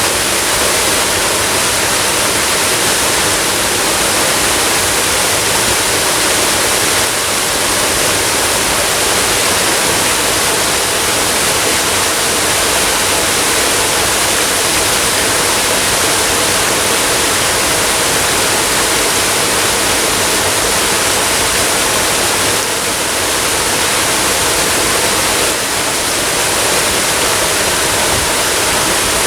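Waterfall cascading steadily: a loud, even rush of falling water.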